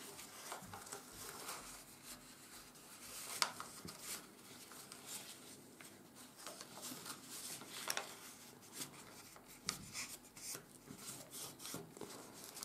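A sheet of 80 g/m² office paper being folded and creased by hand: faint rubbing and rustling as the folds are pressed flat, with a few sharper crackles, the clearest about three and a half and eight seconds in.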